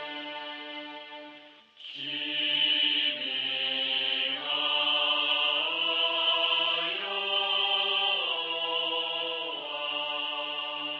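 Slow background music of long held chords that move to new pitches every second or two, with a brief drop in level about two seconds in.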